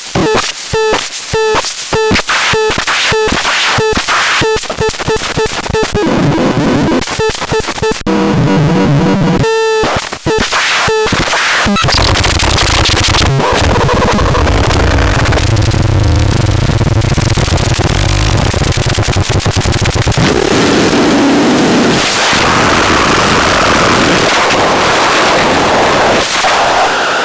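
A DIY synthesizer making harsh electronic noise. At first it plays a fast, regular pulse of clicks with short tone blips. About twelve seconds in, this changes to a dense, steady wall of noise.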